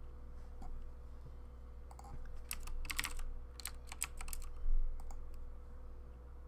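Loud computer keyboard typing: a quick run of keystrokes starting about two seconds in, followed by a dull thump, over a faint steady hum.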